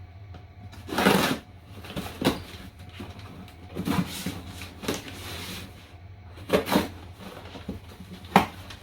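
A parcel being handled and opened by hand: a series of short knocks, scrapes and rustles of cardboard and packaging, the sharpest knock near the end, over a steady low hum.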